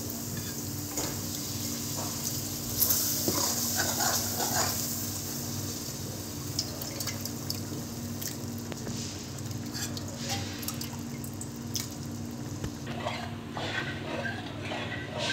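Boiled dal and its cooking water poured into a hot aluminium kadhai of fried masala, sizzling and splashing, loudest in the first few seconds. Near the end a steel ladle stirs and knocks against the pan, over a steady low hum.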